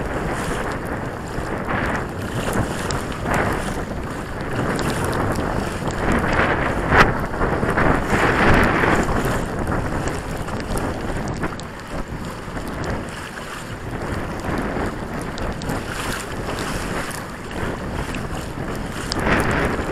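Wind buffeting the microphone over choppy water, with waves splashing against the hull of a Hobie Pro kayak in surges. There is a sharp knock about seven seconds in.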